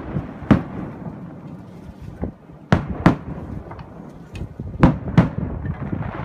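Aerial fireworks shells bursting: about five sharp bangs, the later ones in two quick pairs, with a low rumble lingering between them.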